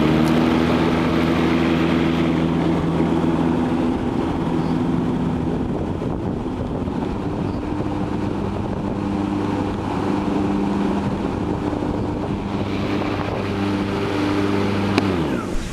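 Cub Cadet RZT-S electric zero-turn mower's deck blades spinning up with a rising whine, then running as a steady electric hum and whine. It is louder at first on blade boost and a little quieter after about four seconds at normal blade speed. Near the end the blades are switched off and wind down with a falling pitch.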